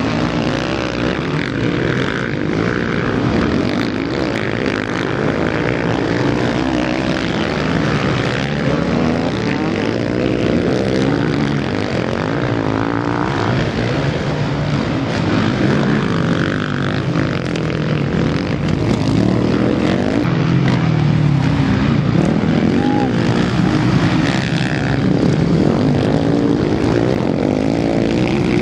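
Several motocross bikes racing, their engines revving up and falling back over and over as the riders jump and take corners.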